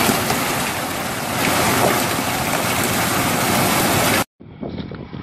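Heavy rain with hail pelting the ground and tree leaves: a dense, steady hiss. It cuts off suddenly about four seconds in, and a fainter, duller noise follows.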